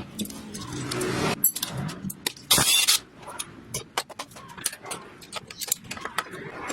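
Metal gearbox parts and tools clinking and knocking on a workbench in a series of sharp clicks, with a short harsh hiss about two and a half seconds in.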